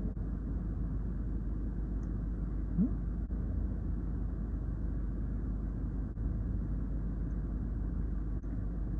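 Steady low rumble of a car's cabin, the idling engine and ventilation heard from inside the car. About three seconds in, a short rising hum of a man's voice.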